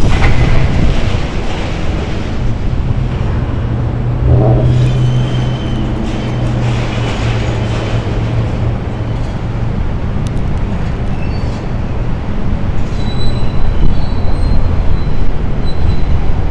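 John Deere excavator's diesel engine running under load. Its hum strengthens about four seconds in and eases off a few seconds later, with a few brief high squeals over the low rumble.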